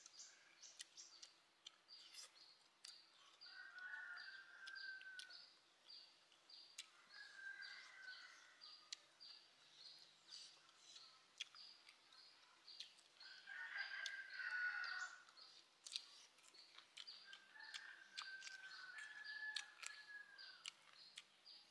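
A rooster crowing faintly four times, each crow a second or two long and falling at the end, over a fast, steady insect chirping, with scattered small clicks.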